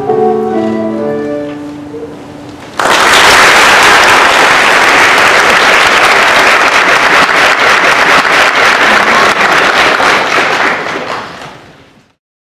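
Soprano recorder and piano finishing their last notes and dying away. About three seconds in, an audience breaks into loud applause, which fades out near the end.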